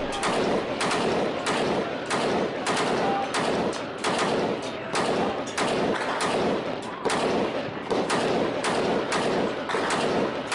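Sustained small-arms gunfire: a steady, uneven run of sharp shots, about two or three a second, each with a short echo.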